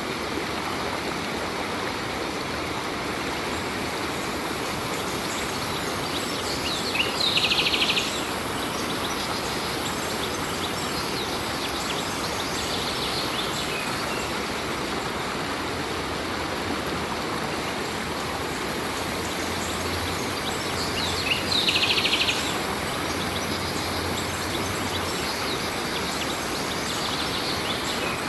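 Stream water flowing steadily, with a bird giving a short, rapid trilled chirp twice, about seven seconds in and again about twenty-one seconds in.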